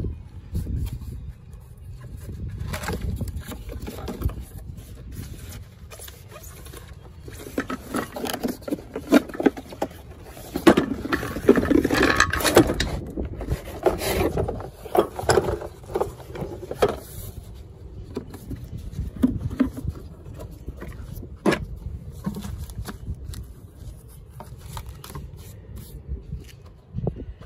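A moulded plastic tool case scraping and rustling as it is slid out of its cardboard box and handled, loudest for several seconds in the middle, over a low rumble. A few sharp clicks follow later on, like the case's latches being opened.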